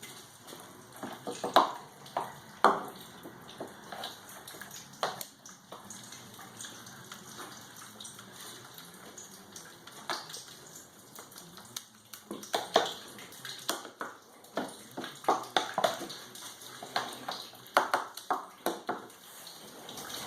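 Scooping a wet paper-pulp and sawdust mixture into briquette press pans: irregular knocks, taps and scrapes, a few louder clacks spread through.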